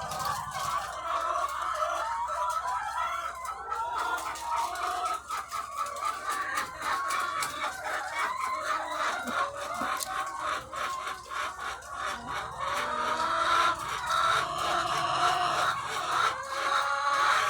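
A large flock of egg-laying hens clucking and calling at once: a dense, steady chorus of overlapping calls, with many short sharp clicks scattered through it.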